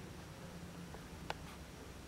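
Quiet room tone: a faint steady low hum, with one short sharp click just over a second in and a fainter one shortly after.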